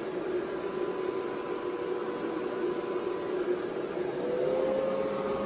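Antminer S9 ASIC miner running, its 120 mm cooling fans whirring steadily through a silencer shroud on the intake and exhaust. A steady hum sits under the air noise, and its pitch rises slightly about four seconds in as the fans speed up.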